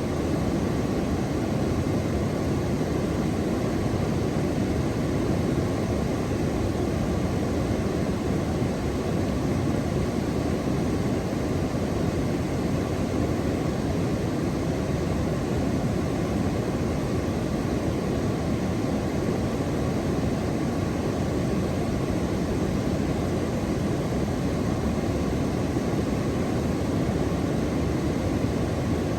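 Steady, even rushing noise, heaviest in the low range, with no separate events or changes.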